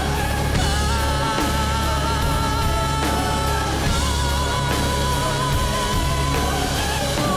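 Live music: a woman's voice singing long held notes with vibrato over a full rock band and orchestra, with heavy bass and drums underneath.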